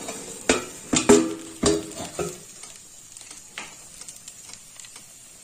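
Pigeon air fryer basket being pulled out: a handful of clicks and knocks of the plastic basket and handle in the first two seconds or so, then a faint sizzle from the hot chicken.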